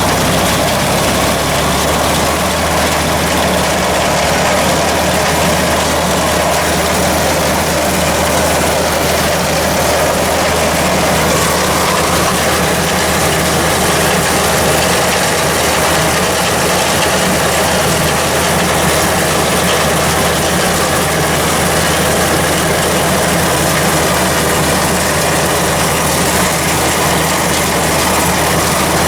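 Tractor diesel engine running steadily at an even speed, with a busy mechanical clatter of moving machinery over it.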